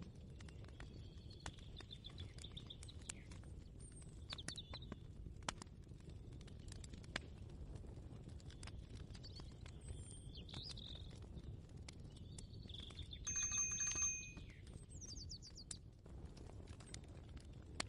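Layered kitchen ambience: a low steady hum under scattered light clicks and knocks, with small birds chirping now and then. A louder, brief ringing sound comes about two-thirds of the way through.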